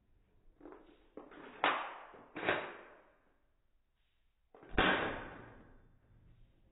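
BB gun shots: three sharp cracks, two close together a little under two seconds in and a third near five seconds, each fading out with ringing, with a few softer knocks before the first.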